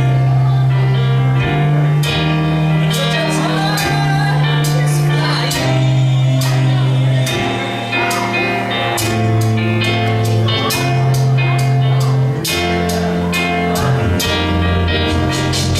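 Live band playing an up-tempo song with singing over steady bass notes and regular drum and cymbal hits.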